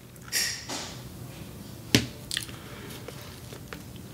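Wet mouth sounds of chewing, with a short hissy smack about half a second in and two sharp clicks about two seconds in.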